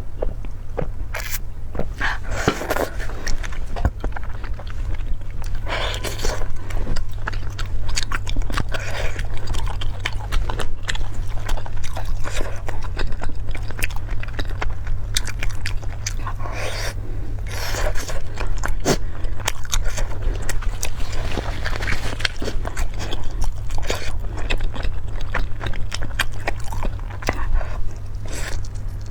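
Close-miked eating of spicy noodles: many quick wet chewing and biting clicks with a few longer noisy smacks, over a steady low hum.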